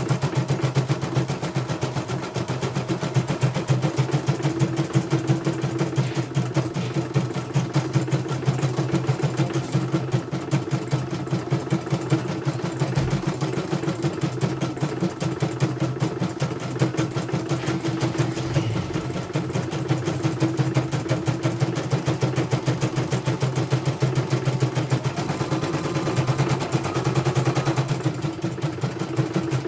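Computerized home embroidery machine stitching a design: a steady motor hum under a rapid, even needle-stroke rhythm. It is running smoothly, with no trouble, after repair of a bobbin case that kept jumping.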